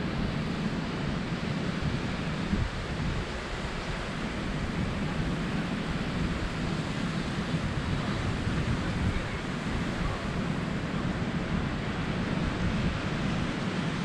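Ocean surf breaking and washing up a sandy beach, a steady wash of noise, with wind buffeting the microphone in uneven gusts.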